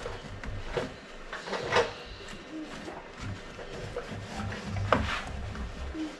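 Rubbing and light knocks of things being handled, with two sharper clacks about two and five seconds in.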